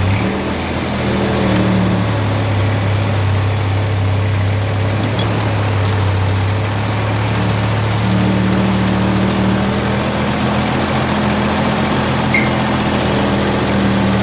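Truck engines running steadily under load as a straight-six pickup pulls a stuck semi out on a chain. A second, higher engine tone joins about eight seconds in.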